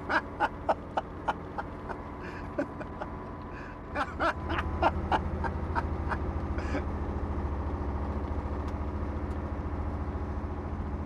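Regular light clicks about three times a second, then a few louder knocks about four seconds in, after which a vehicle engine runs with a steady low rumble.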